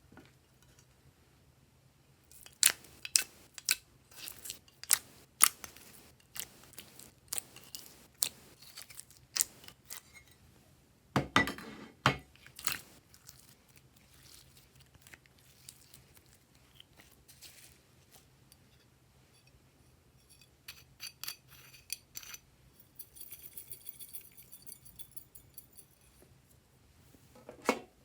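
Glossy slime being worked by hand, giving scattered sticky clicks and pops, a louder squelching cluster about eleven seconds in, and a run of fast crackling ticks near the end.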